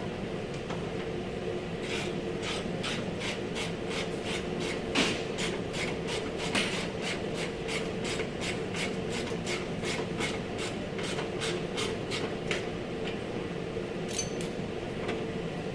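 A hand tool working the car's body panel in quick, even strokes, about three a second, that stop about three-quarters of the way through, with a couple more strokes near the end, over a steady low hum.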